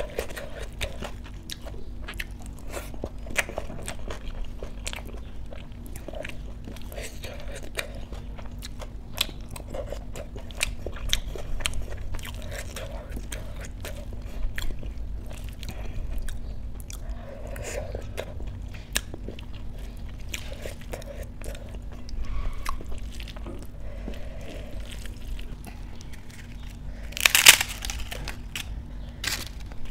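Close-up chewing and mouth sounds of rice and dal being eaten by hand, with small wet clicks from the fingers mixing the food. About 27 seconds in, a loud, sharp crackle as crisp papads are snapped.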